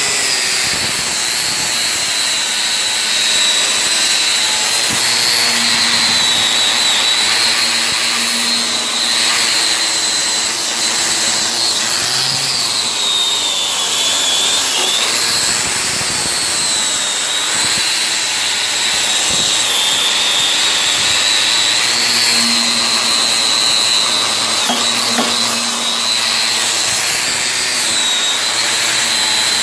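Metalworking tool running steadily on steel plate: a loud, even hiss with a high whistle that wavers slightly in pitch.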